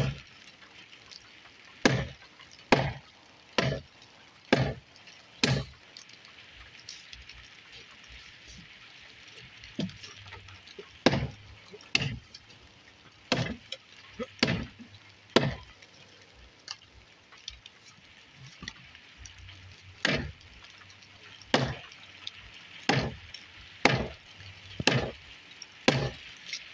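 Axe chopping into a wooden post: sharp strikes about one a second, in three runs with pauses between them.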